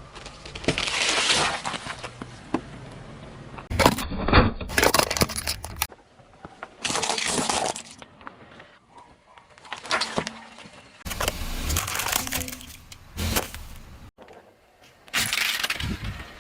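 Crunching and crackling of objects being crushed under a car's tyres, in a series of short stretches that start and stop abruptly.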